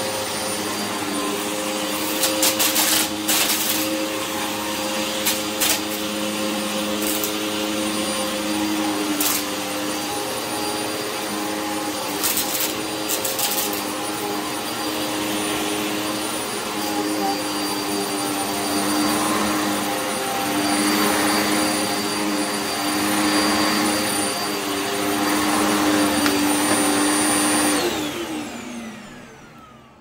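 Hoover upright vacuum cleaner running steadily over a shag rug, with brief crackles of grit and dust being sucked up a few seconds in and again around twelve seconds. Near the end the motor is switched off and winds down, its pitch falling as the sound fades.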